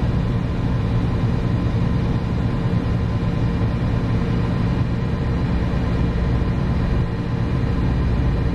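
AAON rooftop air-conditioning unit running steadily in cooling, giving a loud, even machine drone with a constant hum.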